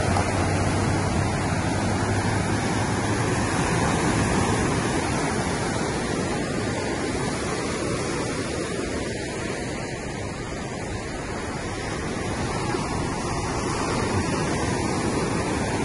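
Sea waves washing on the shore: a steady rushing noise that swells and eases slowly.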